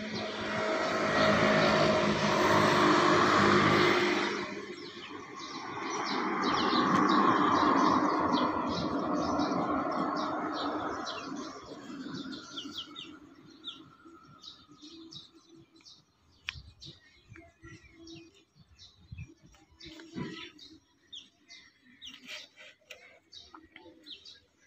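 Vehicle noise swells and fades twice over the first twelve seconds, like traffic passing. After that, rapid short bird chirps continue, with a few faint taps.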